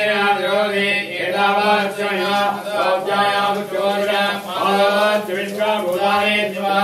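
Male priests chanting Vedic Sanskrit mantras in a continuous recitation, over a steady low hum.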